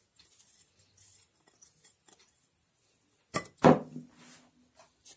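Faint patting and rustling of shredded carrot being spread by hand over a salad. About three and a half seconds in, a loud knock and clink with a short ring: a glass bowl set down on the table.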